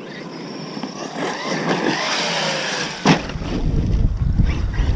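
Large brushless electric RC truck driving, its motor whine sliding up and down in pitch. A sharp knock about three seconds in, followed by a loud low rumbling.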